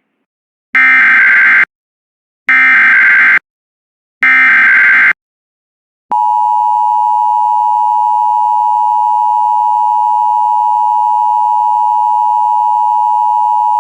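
Emergency Alert System tones: three identical SAME header data bursts, each under a second long and about a second and a half apart. Then, about six seconds in, the steady two-tone EAS attention signal starts and holds. Together they announce an emergency warning message, here a tornado warning.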